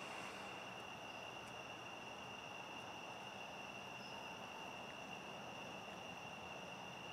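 Faint, steady high-pitched trill of crickets over a low, even hiss.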